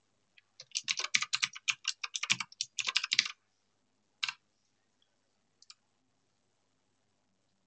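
Typing on a computer keyboard: a fast run of keystrokes lasting about two and a half seconds, then two separate clicks a second or so apart.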